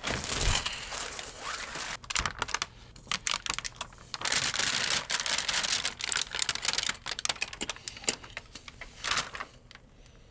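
Crinkling and rustling of a thin plastic lighting-gel cone being handled, with many small clicks and taps as it is fitted into a wire lantern frame. The rustling comes in two denser stretches, about a second long near the start and for about two seconds in the middle.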